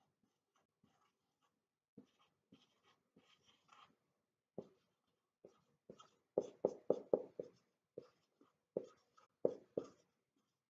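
Whiteboard marker drawn across a whiteboard in short, separate strokes. It is sparse at first while circles are drawn, then comes in a quick run of strokes from about six seconds in as letters are written.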